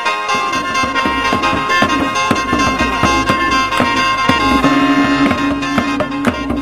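Traditional Isan folk music: a reed drone holding several notes at once, over quick beats from a long drum and strikes of a bossed gong. A low held note joins near the end.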